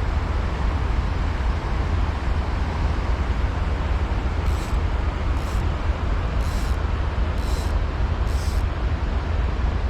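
Steady rushing of a small creek running over rocks, with a low rumble underneath. About halfway in, five short, very high chirps come about a second apart.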